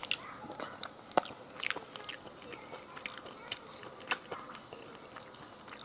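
Close-up eating sounds of sea snails: wet chewing with scattered sharp clicks and crackles, the loudest about a second in and about four seconds in.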